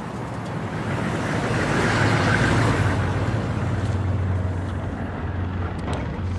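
A motor vehicle's engine rumbling, its noise swelling to a peak about two and a half seconds in and then easing, over a low steady hum.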